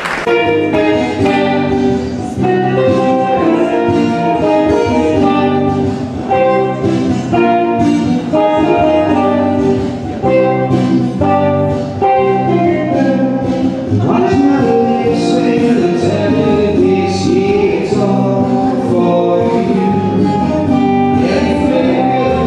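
Live band music with singing, played continuously.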